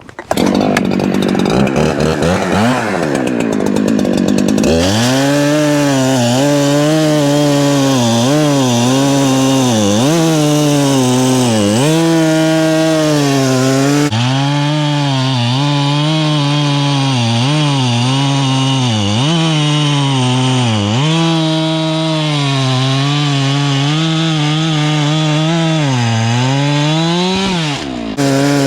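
Husqvarna 372 two-stroke chainsaw at full throttle cutting through a hardwood log. The engine's pitch dips again and again as the chain bogs in the cut and climbs back each time, with a rougher, noisier start before it settles into the cut.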